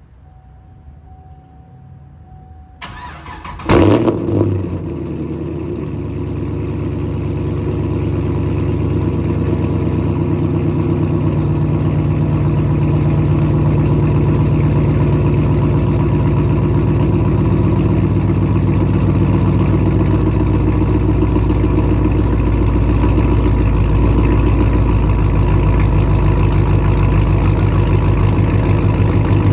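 Chevrolet Camaro SS 6.2-litre V8 with long-tube headers and a 3-inch X-pipe exhaust being started: it cranks briefly about three seconds in, catches with a sharp, loud flare, then settles into a steady, lumpy idle.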